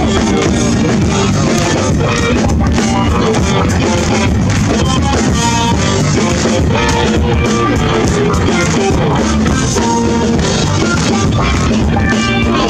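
Live rock band playing an instrumental passage through a PA system: drum kit, bass and electric guitar at a steady loud level, without vocals.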